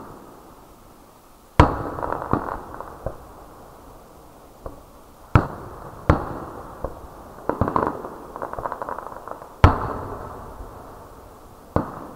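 Aerial fireworks going off: five sharp booms spread over about ten seconds, the loudest near the start and about two-thirds of the way through, each trailing off in a rolling echo. Rapid crackling follows the first boom and fills the stretch between the third and fourth.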